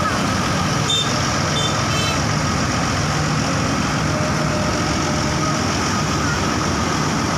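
Steady road traffic with heavy vehicles' engines running, and a few short high beeps about one to two seconds in.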